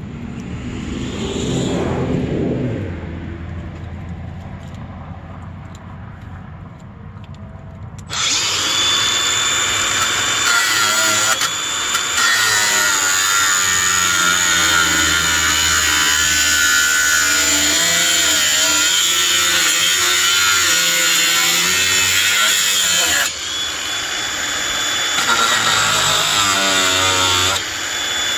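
Makita angle grinder with a cutting wheel. After a falling pitch and a quieter hum, the wheel bites into hollow metal tubing about eight seconds in, giving a loud, harsh cutting sound with a steady high whine. The cut breaks off for a moment around two-thirds of the way through, then resumes.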